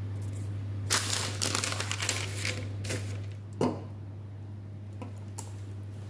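Baking parchment crinkling and rustling as it is handled for about two seconds, followed by a single dull knock as the springform tin is set down, over a steady low hum.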